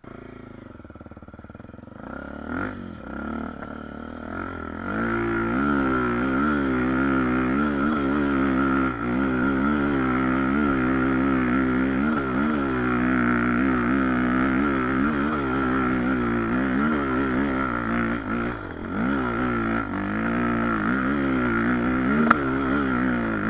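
Single-cylinder four-stroke engine of a Honda XR250 Tornado dirt bike, kitted to 280cc with a ProTork Powercore exhaust, running low at first, then pulling harder from about five seconds in, its revs rising and falling with the throttle as it climbs. A sharp click near the end.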